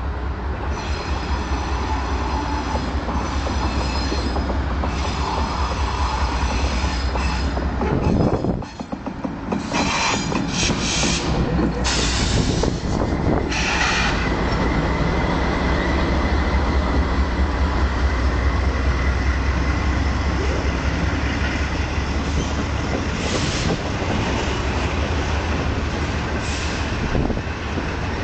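Freight train rolling past: a steady low rumble of wheels on rail, with high-pitched wheel squeal. Short screeches come in a cluster around ten to fourteen seconds in, and a thin steady squeal tone follows for several seconds.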